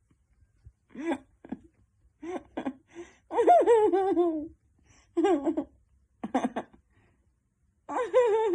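Laughter-like vocal sounds in several short bouts, with a longer wavering one about three seconds in.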